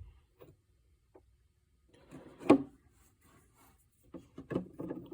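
Metal impact sockets being handled: a few light clicks, then one sharper knock about two and a half seconds in.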